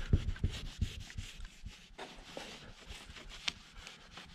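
A rag rubbing softened 3M adhesive residue, turned gel-like by Rapid Remover, off a car door: a quick run of scuffing strokes that is busiest in the first second, then thins out and fades.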